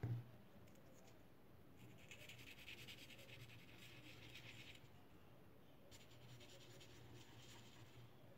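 A light knock at the very start, then a felt-tip marker scratching on paper as it colours in small spots, in two spells of quick scribbling with a pause between.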